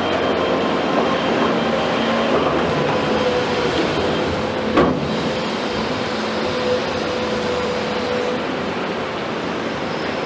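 Komatsu PC210 hydraulic excavator working, its diesel engine running with a steady whine over it that fades about eight seconds in. A single sharp knock about five seconds in.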